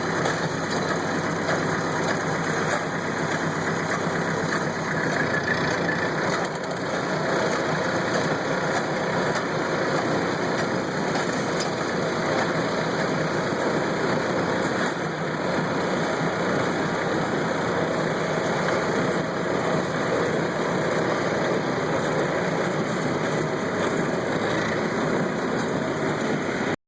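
Kubota tractor engine running steadily while pulling a working hay baler, its machinery clattering along over the engine.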